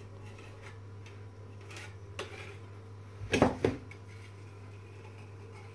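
Metal spatula scraping along a plastered wall as polyurethane sealant is smoothed into a crack. A sharp double knock comes about three and a half seconds in and is the loudest sound.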